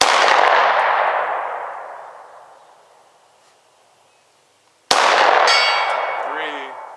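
Two handgun shots about five seconds apart, each followed by a long echo that fades over a couple of seconds. About half a second after the second shot, a steel target rings briefly: a hit at 100 yards.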